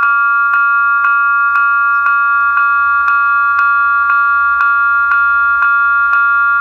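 Level crossing warning bells ringing steadily, about two strokes a second, each stroke ringing on into the next. They warn that a train is approaching and the crossing is closed.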